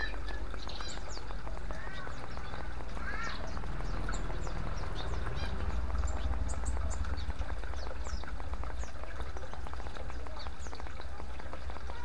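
Water from a bamboo fountain trickling and splashing steadily into a clay bowl and stone basin, with small birds chirping now and then.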